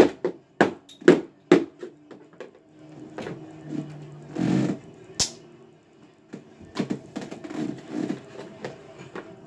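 A TV being struck and broken: four hard sharp knocks in the first second and a half, then scattered cracks, a sharp click and a cluster of smaller knocks and rattles.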